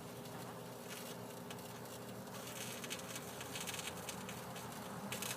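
Microwave oven running with a steady, faint electrical buzz, with scattered small crackles over it.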